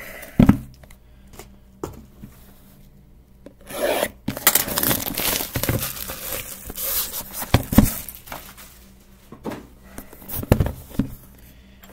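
A sealed Hit Parade Sapphire card box being handled and turned over on the table: a few knocks as it is moved and set down, and about four seconds of rubbing and scraping in the middle.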